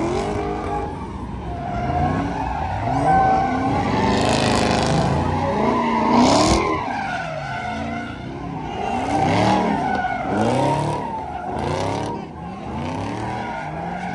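A car engine revved up and down over and over while the tyres spin, with repeated bursts of tyre squeal and skidding.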